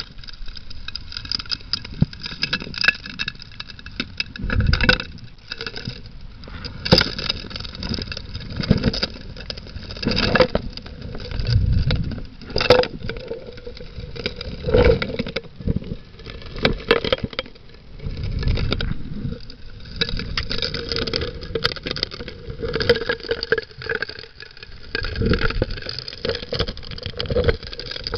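Underwater sound of a Keene 4-inch gold dredge's suction nozzle sucking up streambed gravel: stones knock and clatter irregularly into the metal nozzle in rumbling surges, over the steady hum of the dredge's engine and pump.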